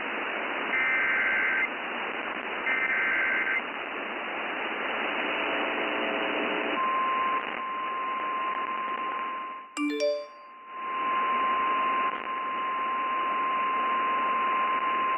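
Emergency Alert System SAME header data bursts, two short two-tone warbling chirps, heard over a radio with steady static hiss. A few seconds later a steady single-pitch NOAA Weather Radio 1050 Hz warning tone starts and holds, with a brief dropout about ten seconds in.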